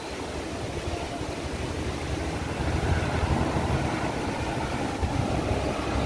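Wind buffeting the microphone: a low, rushing noise with no tone in it, growing gradually louder.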